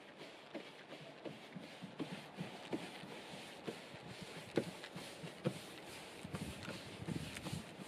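Paintbrush strokes scraping along wooden siding boards as wood stain is brushed on, with irregular light knocks of the brush against the boards, about one or two a second.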